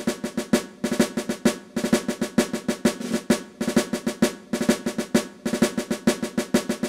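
Drum-led intro music: a fast, rolling pattern of snare-drum hits over a steady ringing tone.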